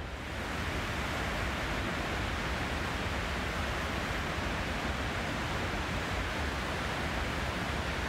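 Cumberland Falls rushing steadily, a wide waterfall in high, churning flow on the Cumberland River, growing slightly louder in the first moment.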